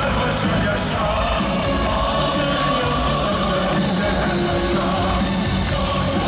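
Loud music with singing, playing steadily without a break.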